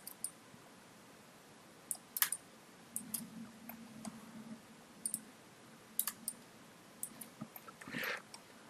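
Computer mouse clicking: short, sharp clicks at irregular intervals, some in quick pairs, over a quiet room background.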